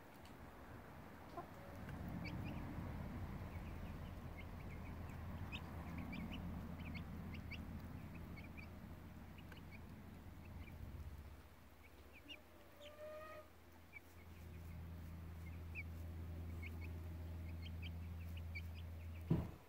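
Silkie chicks peeping in short, high chirps while feeding beside a Silkie hen, with one lower, falling call about two-thirds of the way in. A low, steady drone runs underneath for most of it, and a single loud thump comes just before the end.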